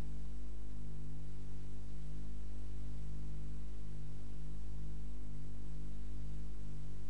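Steady low electrical hum with an even hiss beneath it, the background noise of an old recording, and nothing else.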